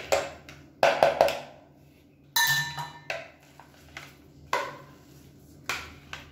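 A plastic mixer jar being knocked against the rim of a plastic bowl to empty out thick mashed vegetables. It gives a series of sharp hollow knocks, three in quick succession about a second in, with a short scraping rattle a little after two seconds.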